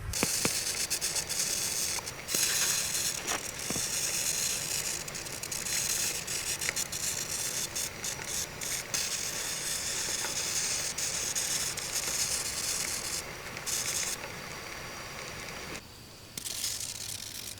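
A pot of rice sizzling and crackling over the heat as it cooks: a steady hiss with many small sharp pops, which breaks off briefly near the end.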